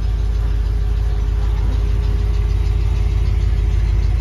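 A car engine idling: a steady low rumble.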